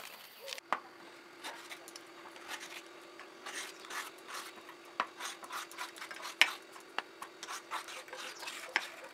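Hand vegetable peeler scraping the ridged skin off a ridge gourd (torai) in quick, irregular strokes, with a few sharp clicks among them.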